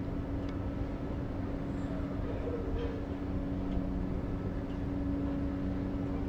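A motor running steadily: a constant low rumble with an even droning hum, and a few faint ticks over it.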